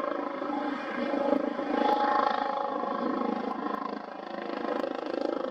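Jet engine noise from an F-15J's twin F100 turbofans at approach power, gear down on its landing approach: a steady rumble with tones running through it, swelling about two seconds in and dipping briefly near four seconds.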